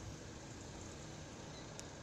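Faint, steady outdoor background noise with no distinct event, and a light click near the end.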